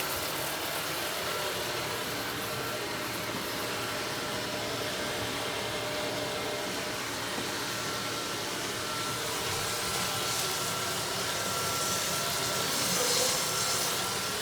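Water rushing steadily from an open tap just after the supply is turned back on following a pipe repair, growing a little louder near the end.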